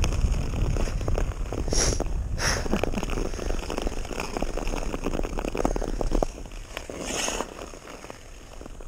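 Yamaha Kodiak 450 ATV running across a frozen field: a low rumble with a rapid crackle over it, easing off about six seconds in.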